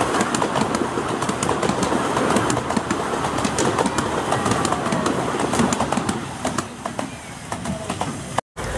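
Miniature-railway carriages rolling past on 7¼-inch-gauge track, wheels clicking rapidly over the rail joints. The sound eases off about two-thirds of the way through and breaks off abruptly near the end.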